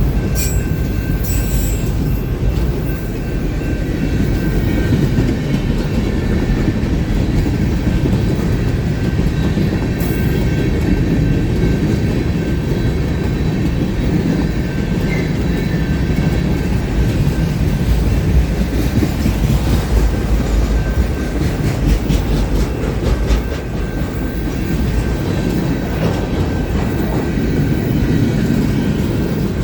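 Freight train cars rolling past: a loud, steady rumble of steel wheels on rail with clacking over the rail joints and a faint, steady high whine.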